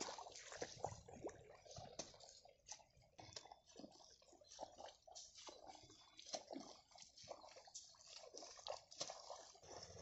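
Faint, irregular small splashes and drips of water in mud, many short ticks at uneven spacing.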